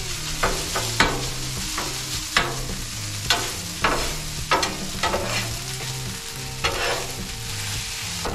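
Rice frying and sizzling on a Blackstone flat-top griddle while it is stirred with a spatula, which scrapes and clacks on the steel cooktop in irregular strokes about every half second to a second over a steady sizzle.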